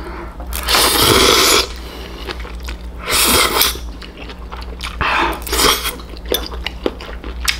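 Close-up eating sounds: three loud slurps of noodles and food, about a second in, about three seconds in and about five seconds in, with chewing and small clicks of chopsticks between them.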